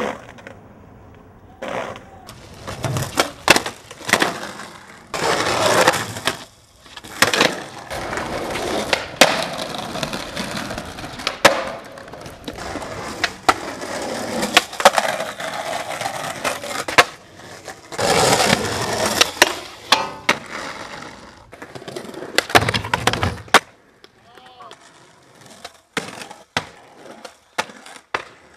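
Skateboard wheels rolling on concrete and brick, broken by many sharp clacks of the board popping, hitting and landing, over a string of short skate clips.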